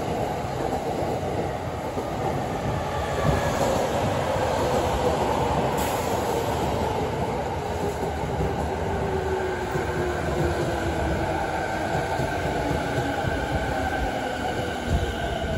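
JR East electric commuter train moving past along the rails with a steady rumble, its traction motors whining in several tones that fall slowly in pitch as the train slows.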